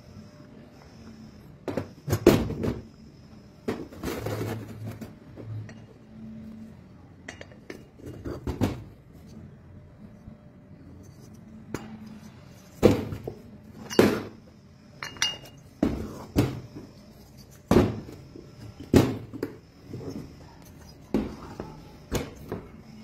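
Irregular metallic knocks and clinks as an aluminium motorcycle cylinder block and piston are handled, set down and turned over on a steel workbench, about a dozen in all, the loudest in the second half.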